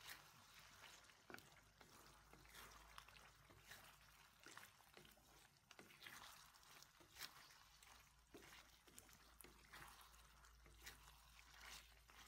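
Faint bubbling and popping of pork and carrots cooking in teriyaki sauce in a wok, with a wooden spatula stirring through it: a low hiss with irregular small clicks and pops.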